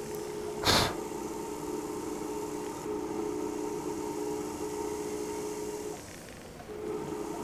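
Jeweller's flex-shaft rotary tool running steadily with a low hum, spinning a blue rubber polishing wheel on a mushroom rivet head to smooth out the hammer marks. There is a short burst of noise just under a second in. The motor drops out briefly near the end, then runs again.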